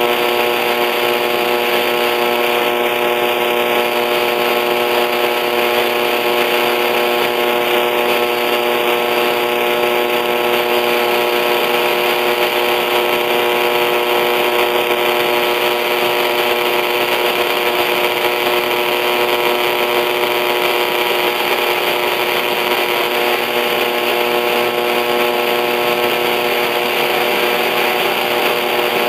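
AM radio static from the LX-U250A mini stereo's tuner on 1260 kHz: a steady hiss with a constant, even electrical buzz. No programme can be heard, so the station's signal is buried in noise.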